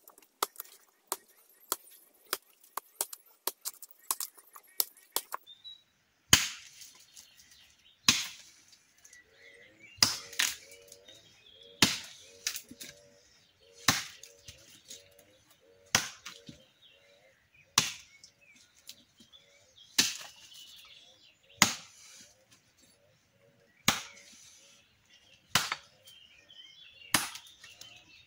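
Hammer blows on a nail being driven into a log to split it. Quick light taps come for the first five seconds or so, then about a dozen hard strikes, one every two seconds.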